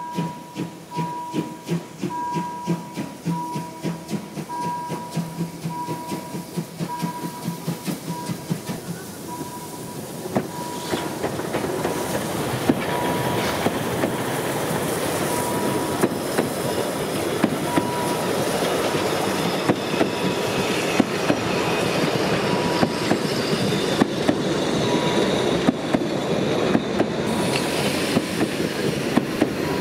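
A 750 mm narrow-gauge steam locomotive approaches with rhythmic exhaust chuffs, about two a second, which grow louder. It passes about ten seconds in, and its train of coaches follows, rolling past with a steady rumble and the clickety-clack of wheels over rail joints.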